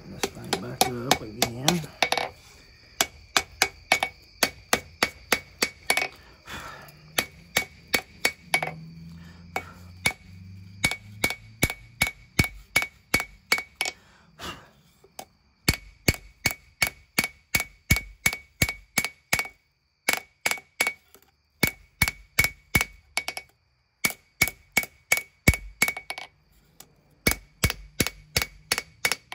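Hand hammer striking hot leaf-spring steel on an anvil in a steady rhythm of about two to three blows a second, each blow ringing out clearly, with a couple of short pauses. The blows are drawing out and thinning the knife's bevels.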